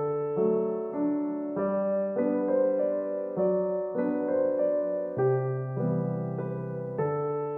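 Background piano music: chords and a simple melody, with new notes about every half second over held bass notes.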